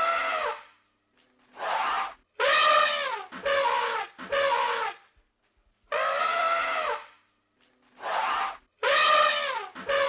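An animal calling over and over, about eight loud, pitched calls in ten seconds. Some come in quick runs of two or three, and several drop in pitch as they end.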